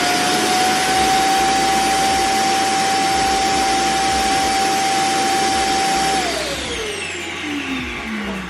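Roomba J7+ Clean Base dock's suction motor running with a steady whine as it empties the robot's dust bin into the base. About six seconds in it winds down, the whine falling in pitch as it fades.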